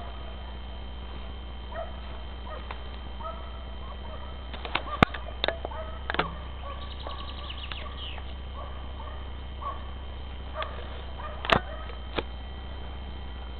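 Scent hounds giving tongue in the distance, short repeated bays while trailing a hare. Two sharp clicks stand out above them, about five seconds in and again near the end.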